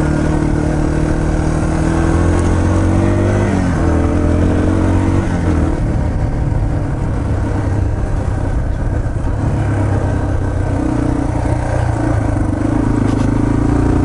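Yamaha TT-R230 trail bike's air-cooled single-cylinder four-stroke engine running under way. Its pitch rises with the throttle about three and a half seconds in, drops back about five seconds in, and climbs again near the end.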